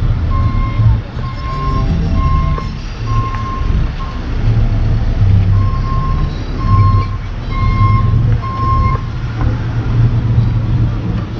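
Vehicle backup alarm beeping at an even pace, about one beep every two-thirds of a second, pausing for a couple of seconds midway and stopping about nine seconds in, over a low rumble of engines and street traffic.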